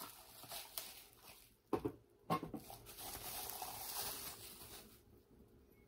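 A couple of knocks from handling the mug's cardboard box, then clear plastic wrapping crinkling for about two and a half seconds as the mug is pulled out and unwrapped.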